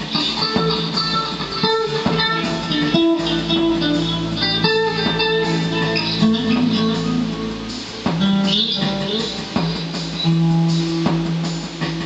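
Tokai TST56 Strat-style electric guitar played through a Fender G-DEC amp on a spacey delay preset: picked single notes and chords ringing and overlapping.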